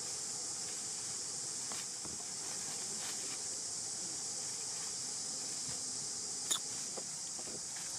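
Steady high-pitched drone of insects, with faint crackles of dry leaves and one sharp click about six and a half seconds in.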